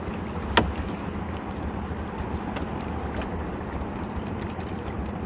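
Lobster pots being handled in a small boat: one sharp knock about half a second in, then a few faint clicks and rattles, over a steady rushing background of wind and water.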